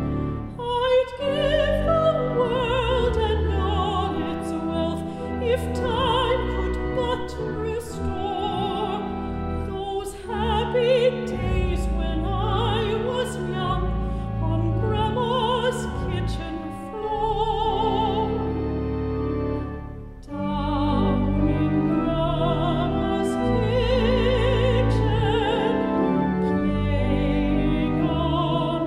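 Mezzo-soprano singing a 1906 popular song with wide vibrato, accompanied by organ with sustained low notes. Her voice breaks off briefly about two-thirds of the way through, then she carries on.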